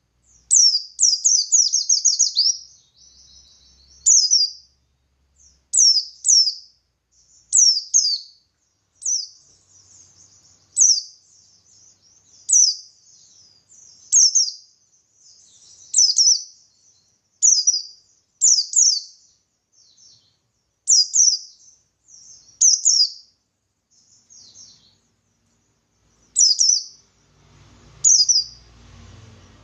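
Pleci buxtoni (Oriental white-eye) singing in the wild 'ngalas' style: high, quick down-slurred chirps in tight clusters of two to four, repeated every second or two. A faint low rumble sits under the song near the end.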